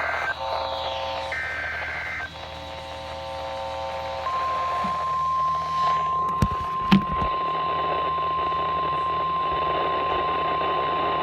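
NOAA Weather Radio emergency alert. Two short buzzing digital data bursts (the SAME header) come first, then about four seconds in the steady 1050 Hz warning alarm tone starts and holds, over radio static. Two brief thumps come midway.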